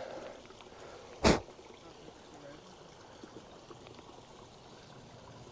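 Faint trickle of a creek, with one brief sharp noise about a second in.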